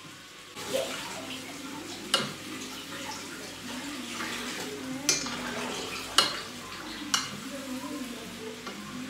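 Wooden spatula stirring chicken and vegetables in a frying pan over a steady sizzle, with four sharp knocks of the spatula against the pan.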